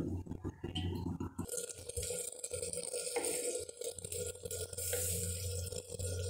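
A few clicks of handling at the gas stove, then a steady low hum with a soft hiss and faint bubbling from tomatoes and onions cooking in a clay pot over a low gas flame.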